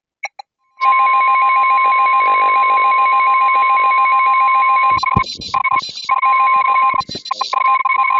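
Emergency alert attention tone: a loud, steady, single high tone of about 1 kHz that starts about a second in and breaks up briefly twice past the middle. It sounds ahead of a spoken tornado warning.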